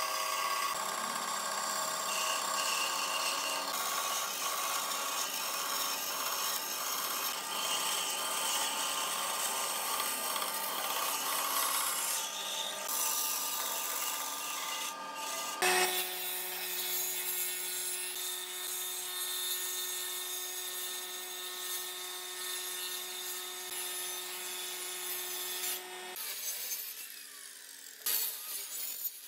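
Band saw running with its steady motor hum while the blade cuts a curve through a thick pine rocker blank, a continuous rasping cutting sound. The cutting sound thins out near the end.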